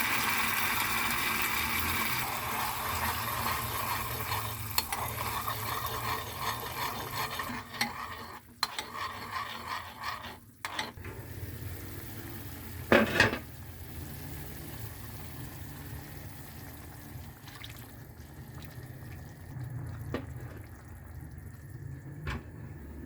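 Food sizzling in a frying pan while being stirred, with clinks and scrapes of a utensil. There is one loud knock against the pan about thirteen seconds in, and the sizzle is quieter over the second half.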